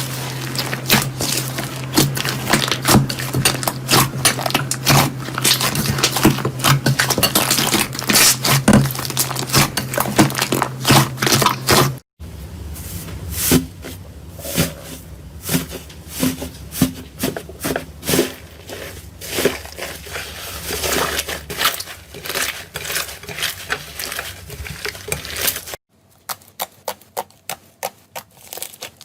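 Slime being squeezed and pressed by hand, a dense run of crackling and popping, in three clips cut together about 12 and 26 seconds in. A steady low hum lies under the first clip.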